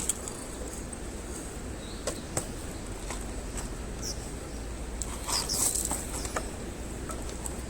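Wood campfire crackling, with scattered sharp pops over a steady low outdoor rumble.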